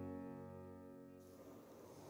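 Background music: a held chord fading out over the first second or so, then near silence.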